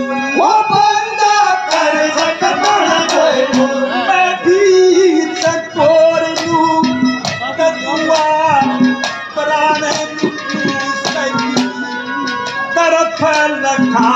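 Haryanvi ragni folk music: a bending, gliding melody line over repeated hand-drum strokes.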